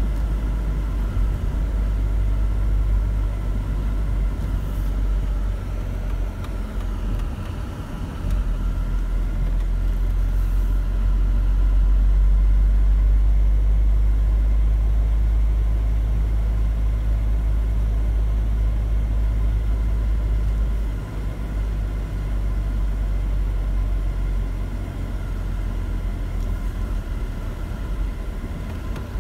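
Mercedes-Benz car driving on a rough country road, heard from inside the cabin: a steady low rumble of tyres and engine that grows louder about a third of the way in and eases off again about two-thirds of the way through.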